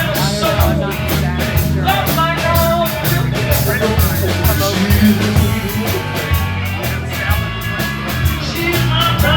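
Live rock-and-roll band playing loud music: electric guitar, bass and drums keeping a steady beat, with a singer.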